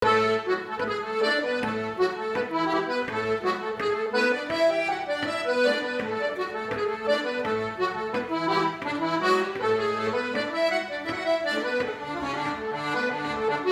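Accordion playing a lively tune: a melody over chords, with bass notes changing in a steady rhythm.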